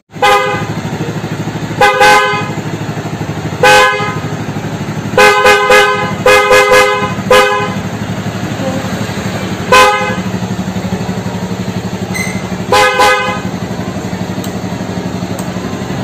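Newly fitted Hella Midnight Tone dual horn on a Honda CBR250R, sounded in a series of about ten short honks, several in quick clusters, each a two-note chord. The bike's single-cylinder engine idles steadily underneath.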